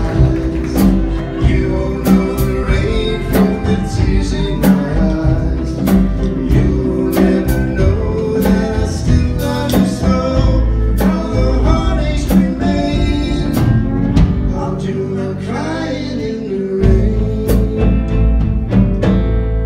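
A live country band playing: a man singing over acoustic guitars, steel guitar and upright bass, with a steady beat.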